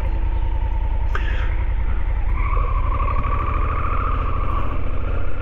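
Honda Africa Twin CRF1000L's parallel-twin engine running at low speed, a steady low rumble of rapid firing pulses. A higher whine comes in about two seconds in and fades near the end.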